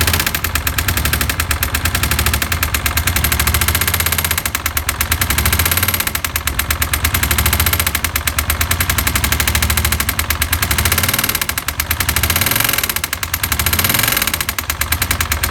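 Suzuki SV400 V-twin engine running with a rapid, loud, machine-gun-like knocking that swells and eases several times. The knock is crankshaft knock from a connecting rod that has worked loose on the crank.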